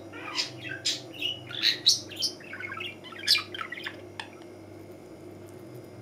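Budgerigar chattering in a quick run of short, sharp chirps and squawks that stop about three and a half seconds in.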